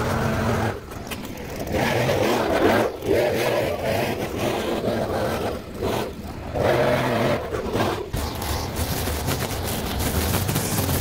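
Stihl FS 220 two-stroke brushcutter cutting grass, its engine revving up and dropping back again and again.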